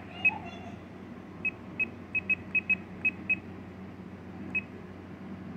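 RadioMaster TX16S radio transmitter giving about ten short, high beeps at one pitch, irregularly spaced, as its aileron weight value is scrolled down one step at a time toward 60%.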